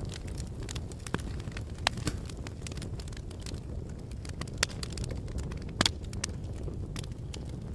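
Wood fire crackling: irregular sharp pops and snaps, a few of them louder, over a steady low rumble of blowing wind.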